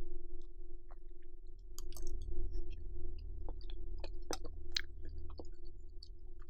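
Close-miked chewing of cheesy macaroni and chewy rice cakes, with wet mouth clicks and smacks scattered irregularly through it. A steady low hum runs underneath.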